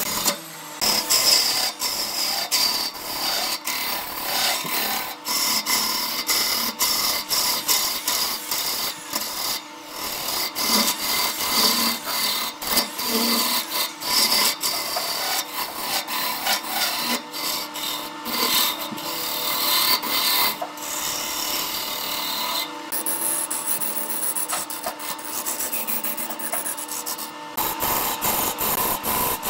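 A turning tool cutting into a wood blank spinning on a lathe: a continuous rough scraping and shaving sound, uneven in loudness, with a faint steady hum beneath.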